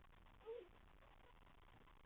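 A newborn Goldador puppy gives one short, faint squeak about half a second in, dipping in pitch at its end, over a low steady hiss.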